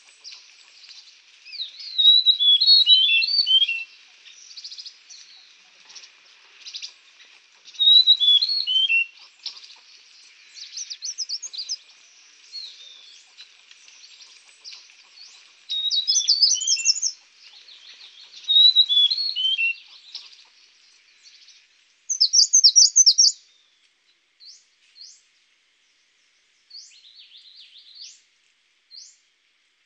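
Small songbirds singing: short, bright trilled and chirping phrases every few seconds over a faint hiss. About two-thirds of the way through, the hiss drops away, leaving a few isolated quick chirps.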